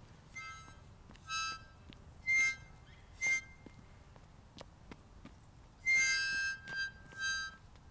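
A child blowing a harmonica in short, separate blasts: four about a second apart, then a longer note about six seconds in followed by two short ones.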